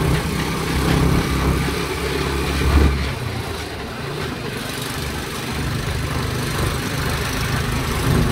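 A vehicle's engine running, heard from on board while it drives along a town street; the low hum is strongest for about the first three seconds, then eases off.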